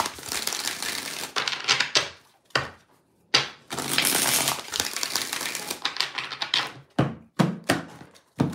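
Tarot cards being shuffled and handled: papery riffling and sliding in two longer stretches, with sharp snaps and taps of cards set down on the table in between and near the end.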